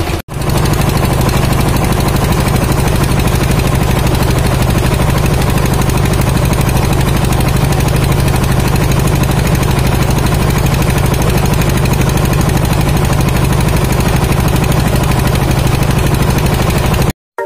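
Wooden fishing boat's engine running steadily under way with a rapid even beat, over water rushing along the hull. The sound cuts off suddenly shortly before the end.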